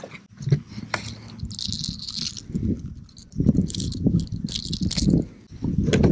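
Irregular clicks, knocks and metallic rattling of a hard-bodied lure and its hooks as a speckled trout is handled and unhooked by hand.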